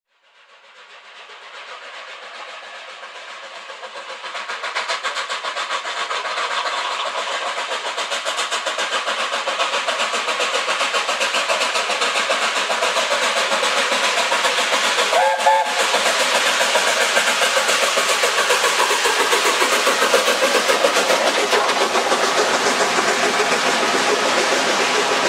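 Steam locomotive hauling a passenger train, growing louder over the first five seconds as it approaches, then passing close by with the steady noise of its working and of the coaches running on the rails. A brief whistle toot sounds just past the middle.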